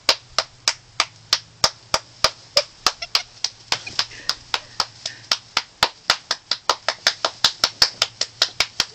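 A person clapping hands in a steady rhythm, about three to four claps a second, to call puppies over.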